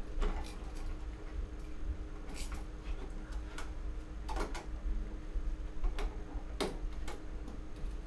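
Irregular sharp metallic clicks and scrapes of a hand screwdriver working the screws of a light switch in its wall box, about ten in all, over a steady low background rumble.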